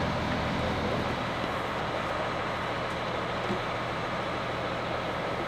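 Parked coach idling: a steady engine hum under a broad, even hiss.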